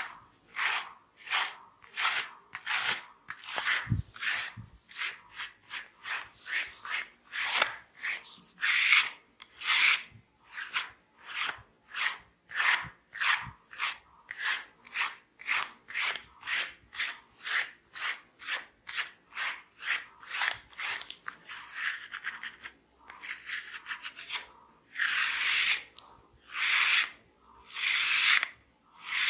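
Hands rubbing briskly through hair and over the scalp in a head massage, a dry hissing stroke about twice a second; near the end the strokes slow to a few longer, louder rubs.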